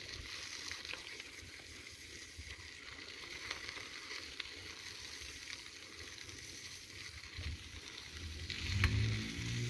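Light rain falling as a steady hiss, with a few sharp ticks and a low, unsteady rumble of wind on the phone's microphone that grows louder near the end.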